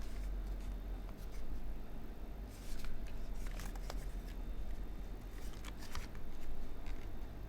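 Typing on a Typ60 SL mechanical keyboard: stock Gateron Pro milky-top linear switches under PBT keycaps on a full carbon-fibre, O-ring gasket-mounted plate. The keystrokes are irregular and sparse, some in quick little clusters, over a steady low hum.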